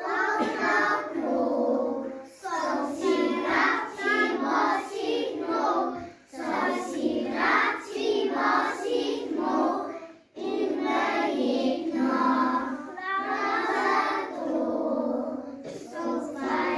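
A group of young children singing a song together in Slovenian, in sung lines with short pauses between them.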